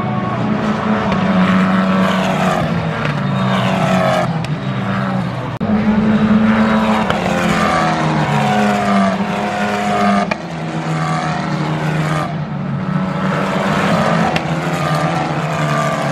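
Single-seater formula race car engines running at high revs as the cars pass on the track, the pitch stepping up and down with gear changes. The sound drops out abruptly about five and a half seconds in and comes straight back louder.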